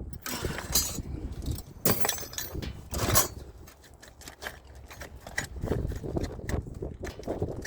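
Small metal hand tools, Allen keys among them, clinking and rattling against each other as they are handled and sorted. The sound is a run of sharp clicks, with the loudest clinks about two and three seconds in.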